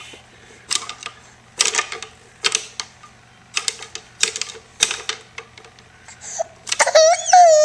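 Irregular sharp clicks and taps, roughly one every half second to second. Near the end a baby starts crying with a loud, high wail.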